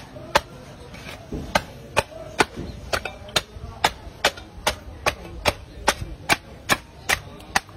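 Heavy cleaver chopping through a large stingray's flesh and cartilage onto the cutting board in quick, even strokes, about two or three a second, with a short pause about a second in.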